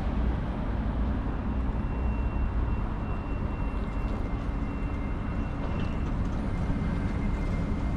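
Bergen Bybanen light rail tram standing at a platform: a steady rumble, with a faint high whine from about two to six seconds in.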